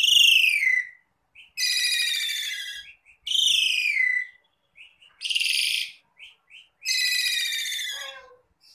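Asian pied starling (jalak suren) singing a loud run of calls, each about a second long. Some slide down in pitch and one is harsh and rasping, with short chirps between them.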